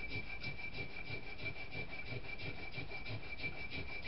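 Hand-sanding a cast firebird figure to take out the casting lines: quick back-and-forth rubbing strokes, about six a second, at an even pace. A steady high-pitched tone runs underneath.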